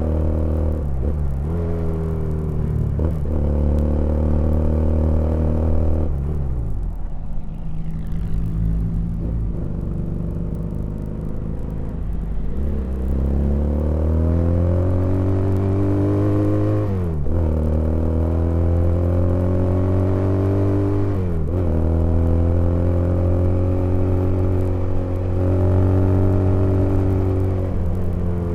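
Custom 320 cc inline two-cylinder motorcycle engine, built from two Honda GL Pro engines, pulling through the gears: its pitch climbs steadily and then drops sharply at each shift, several times over. From about six to twelve seconds in it runs lower and eases off before climbing again.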